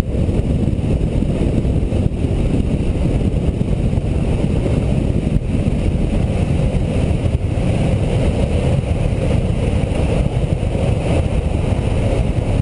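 Steady rushing roar of a longboard going fast downhill: wind buffeting the board-mounted microphone over the rumble of the wheels rolling on asphalt.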